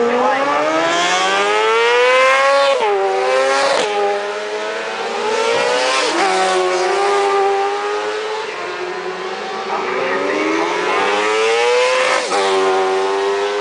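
Racing sidecar outfits' engines at full throttle, climbing in pitch as they rev, then dropping sharply several times as the revs fall, and climbing again before one more sudden drop near the end.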